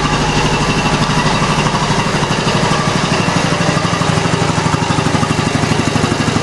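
Quincy QR-325 two-stage air compressor running steadily, its pump making an even, rapid mechanical pulse.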